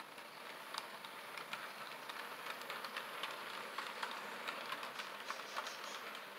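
HO scale model freight cars rolling past on the track: a faint, steady whir of the small wheels, with many small irregular clicks.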